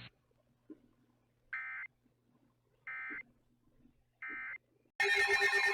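Three short electronic data bursts of an Emergency Alert System (SAME) end-of-message code, each about a third of a second long and about a second apart, signalling the end of a weather alert broadcast. Near the end a much louder, harsh electronic alert sound starts abruptly.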